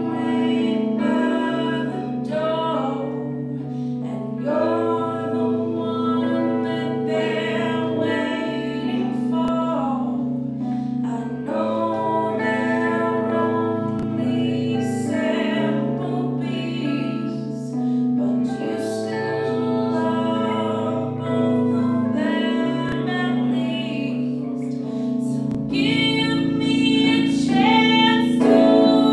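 A live band playing a song, with a woman singing over keyboard and electric guitar. The band gets fuller and louder near the end.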